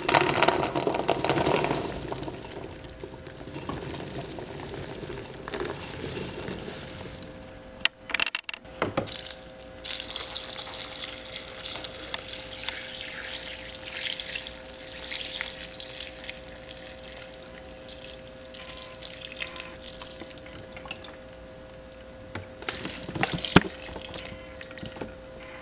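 Cooked chickpeas tumbling into an empty metal pot, then water poured from a plastic bottle over the chickpeas in a steady splashing stream. A knock about eight seconds in, and a faint steady hum underneath.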